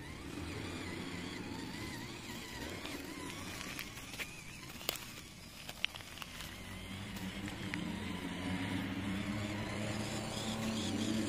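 FMS FCX24 1/24-scale RC crawler's small electric motor and gears whining, the pitch rising and falling with the throttle, with a few sharp clicks near the middle.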